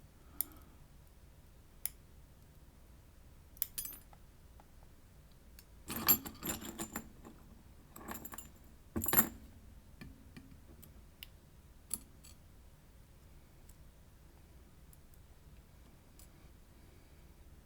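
Small metal parts of a wafer lock clicking and rattling as it is disassembled by hand: a few single sharp clicks, with two louder bursts of clatter near the middle.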